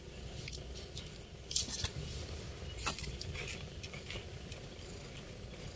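Scattered light rustles, crackles and a few sharper taps of hands working potting soil in a pot.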